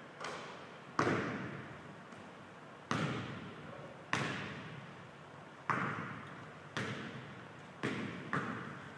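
Basketball bouncing on a hardwood gym floor, about eight single sharp bounces at an uneven pace, each ringing out in a long echo around the big empty gym.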